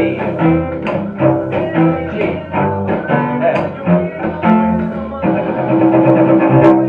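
Bowed cello playing a rhythmic chordal bass line, with percussive chop strokes of the bow between the notes. About five seconds in it settles on a long held chord that stops just at the end.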